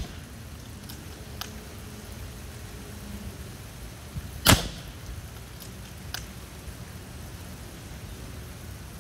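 A single shot from a .30 calibre PCP air rifle, the Macavity Arms MA2: one sharp crack about halfway through. Faint ticks come before and after it.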